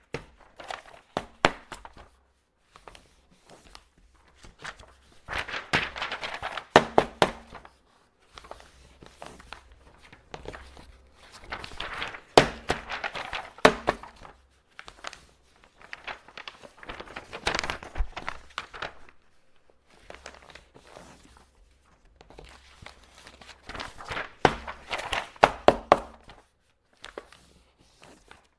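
Sheets of paper being handled and folded: crisp rustling in four bursts of a few seconds each, with sharp crackles and taps in them and quiet stretches between.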